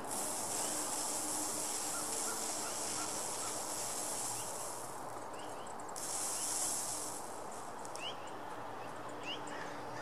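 Outdoor dawn chorus: a steady high insect buzz that cuts out for about a second around five seconds in, and again for the last couple of seconds. A few short rising bird chirps sound in the second half.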